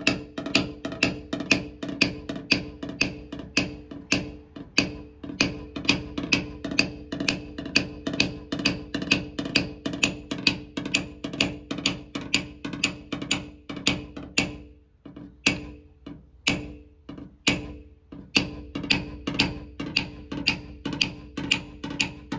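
Rapid hammer taps on a SlapperTapper paintless dent repair tool held against a Rivian truck's quarter panel, about three to four a second, each with a short ringing note. The metal is being tapped down to work out the dent. The tapping breaks off briefly about two-thirds of the way through, goes on slower for a few strikes, then picks up again.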